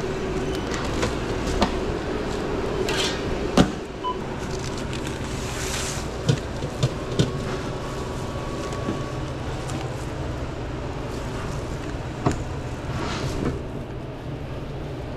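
Sandwich-counter work over a steady low kitchen hum: scattered sharp clicks and knocks, and a few brief rustling swishes.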